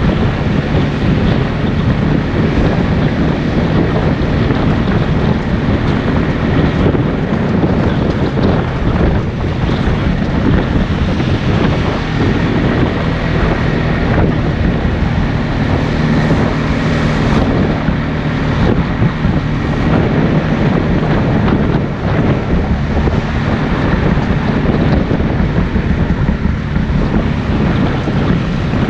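ATV engine running steadily while riding, largely covered by wind buffeting the microphone.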